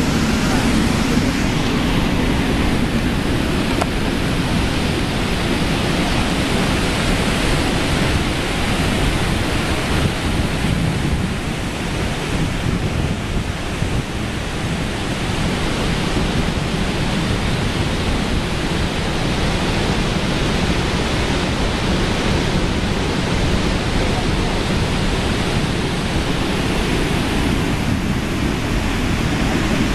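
Steady roar of Kaieteur Falls, a 741-foot single-drop waterfall, heard from the rock ledge at its brink, easing off a little about halfway through.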